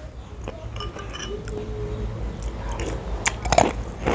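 Close-miked eating sounds of a person spooning up and chewing an iced fruit dessert with jelly and avocado, with a cluster of sharp mouth clicks and smacks a little over three seconds in.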